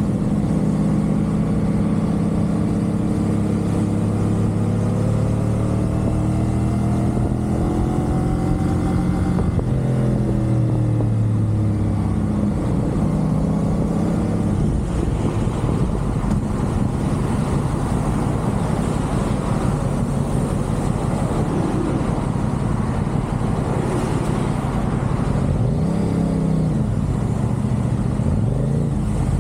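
CFMoto 450SR sport bike's parallel-twin engine under way on an expressway, its pitch rising steadily for about ten seconds as it accelerates, then falling away. For the rest, wind and road noise dominate, with the engine note dipping and rising briefly near the end.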